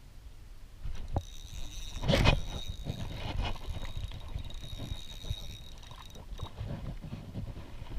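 Knocks and handling noises in a fishing boat, with one loud thump about two seconds in. A thin, steady high whine runs from about one second in to about six seconds.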